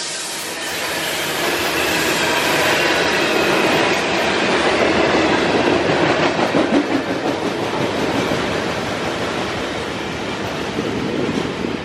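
Freight train of covered hopper cars rolling past close by: a steady rumble and clatter of steel wheels on the rails.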